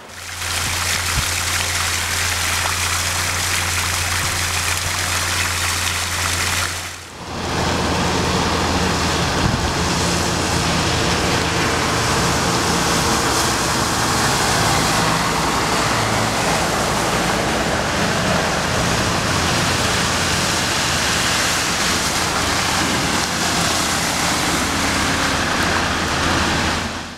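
Steady rushing of floodwater in a rain-soaked street, with water gushing up out of storm drains. It breaks off briefly about seven seconds in and resumes, now with a heavy truck's engine and tyres splashing through the standing water.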